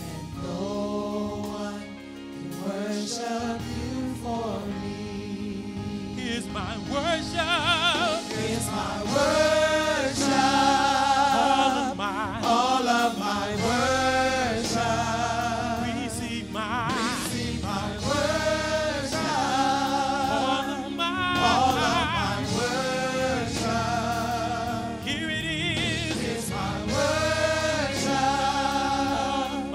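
Gospel vocal group singing a worship song: several voices holding long notes with a wavering vibrato, the melody rising and falling in drawn-out arcs.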